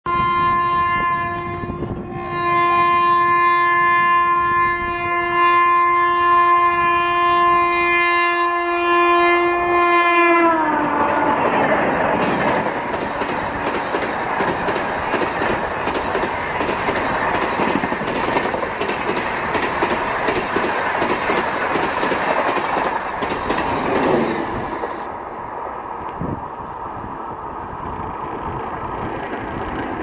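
A WAP-4E electric locomotive's horn sounds, a short blast and then a long one held for about eight seconds. Its pitch drops as the locomotive passes. The Duronto Express coaches then rush past with a loud rumble and rapid wheel clatter over the rail joints, falling quieter after about 24 seconds as the train speeds away.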